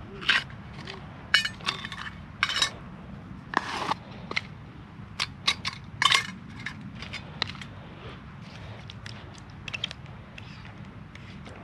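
Clinks, taps and knocks of small metal camping-stove gear being handled: the lids come off a spirit burner and are set down, then a fuel bottle is picked up and opened over it. The knocks come thick in the first half and thin out later, over a steady low rumble.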